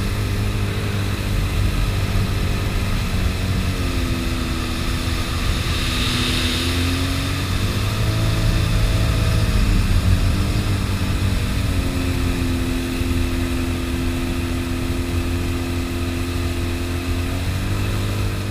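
Sea-Doo Spark jet ski engine running at speed, its pitch falling and rising several times as the throttle is eased and opened again, over a steady rush of water.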